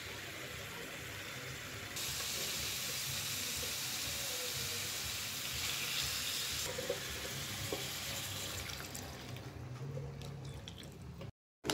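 Tomato stew sizzling in a pan on a hotplate: a steady hiss that starts suddenly about two seconds in, drops at about seven seconds and fades away over the last few seconds.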